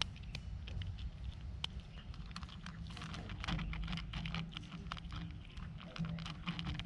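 A cat eating, with a dense, irregular run of small clicks of chewing and lapping.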